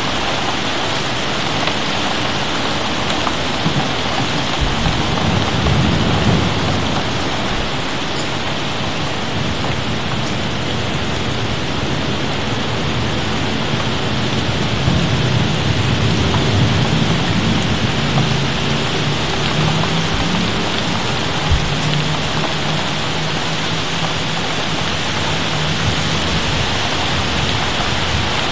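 Steady rain falling during a thunderstorm, with thunder rumbling low about five seconds in and again through the middle stretch.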